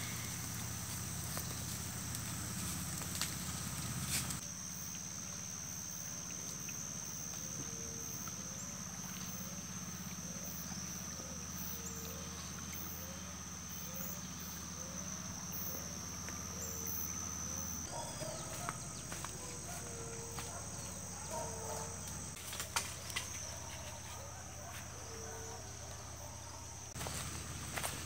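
Insects droning steadily at a high pitch in the riverside vegetation, with a run of short, low calls repeating about once a second.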